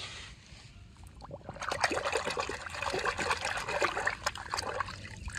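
Water splashing and trickling as a hand swishes a small toy train around in a shallow pool of water to rinse it, starting about a second and a half in.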